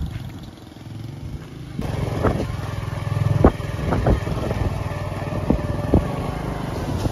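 Motorcycle engine running. It first fades as the fodder-laden bike pulls away, then comes in louder and steady as the bike rides a rutted dirt track, with several sharp knocks.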